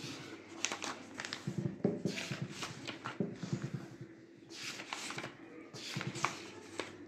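Pages of a printed paper test booklet being turned and handled, a series of irregular rustles and flaps of paper.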